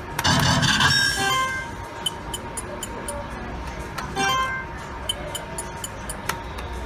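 IGT Da Vinci Diamonds slot machine sound effects: a loud electronic burst of jingling tones in the first second and a half, then short chimes and regular ticks about three a second as the reels spin and symbols tumble, with a second brief burst about four seconds in.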